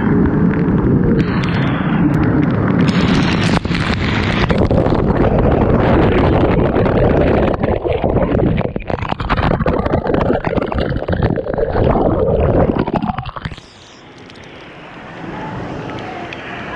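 Loud rushing and splashing water from a lazy-river waterfall pouring over a waterproof GoPro, a dense roar that buffets the microphone. It drops off suddenly about thirteen and a half seconds in, leaving a quieter hiss.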